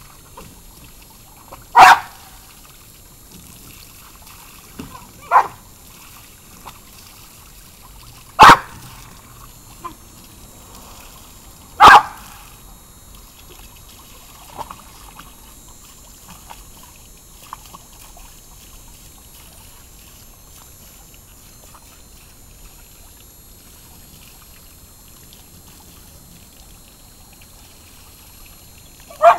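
A dog barking, four single sharp barks a few seconds apart in the first half, over the faint steady trickle and splash of a garden hose spraying into a plastic kiddie pool.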